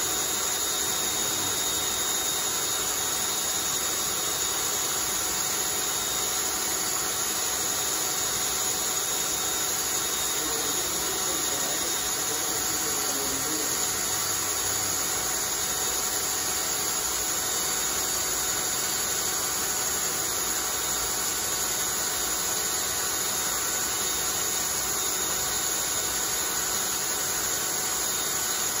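Cordless drill motor running steadily at constant speed, spinning a homemade wooden centrifuge rotor: an even whir with a few steady tones that does not change.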